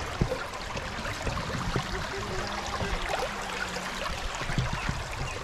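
Steady rush of flowing river water, with a faint low hum through the middle and a few faint clicks.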